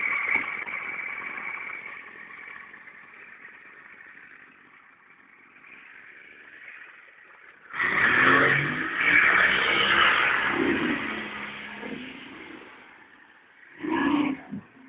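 Volvo Penta 70 hp outboard motor on a small speedboat running at speed. It fades as the boat moves away, then turns suddenly loud for about four seconds as the boat passes close, with a short loud burst near the end.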